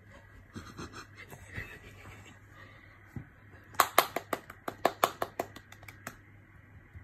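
A baby clapping her hands: a quick run of about a dozen claps, roughly six a second, starting a little past halfway and lasting about two seconds.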